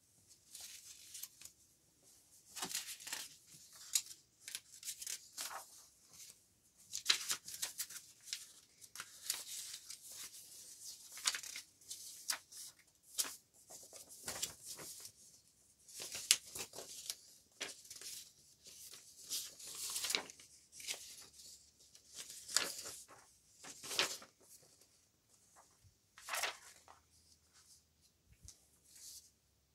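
Sheets of printed writing paper rustling and sliding against each other as they are handled, shuffled and spread out by hand, in many irregular swishes.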